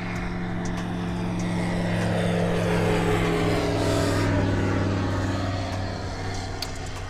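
A propeller light aircraft passing by: a steady engine drone that grows louder to a peak about four seconds in, then fades, its pitch sliding down as it goes past.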